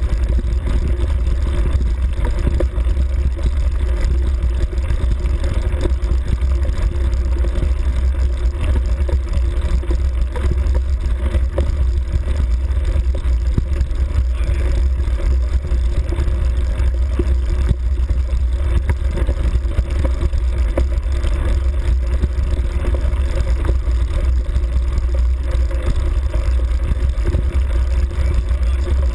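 Steady rumble of a vehicle riding along a grassy forest track, with wind buffeting the microphone of the camera mounted on it.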